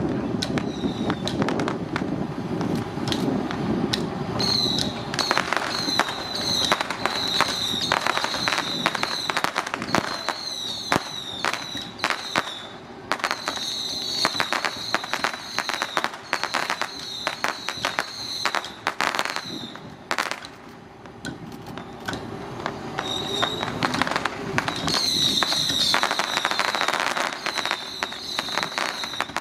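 Strings of firecrackers going off in rapid, dense crackling volleys, with a high wavering tone sounding alongside in stretches; the bangs thin out briefly about two-thirds of the way through.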